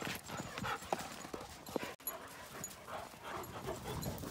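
Dogs playing in deep powder snow: irregular scuffling and crunching of snow.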